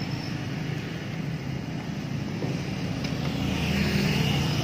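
Motor vehicle engine running with road noise, growing louder near the end.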